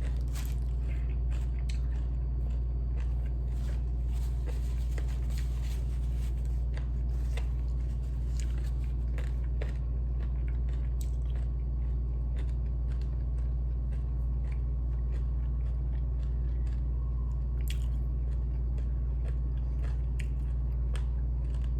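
Close-up chewing and crunching of crispy fried chicken pieces, with many irregular crisp bites, over a steady low hum.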